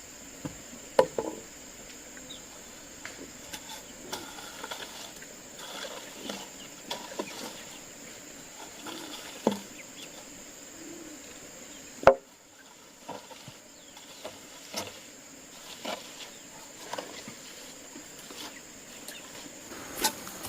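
Scattered knocks and clatter of wood being handled and struck, the sharpest about a second in and about twelve seconds in, over a steady high-pitched insect drone.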